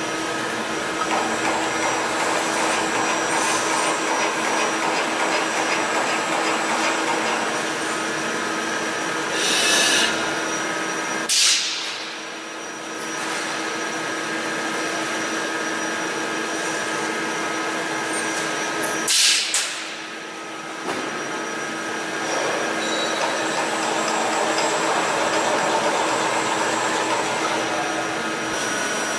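Yaskawa Motoman industrial robot running through a motion cycle: a steady mechanical whine from its servo drives with several held tones. Short loud hisses break in about a third of the way through and again twice near two-thirds.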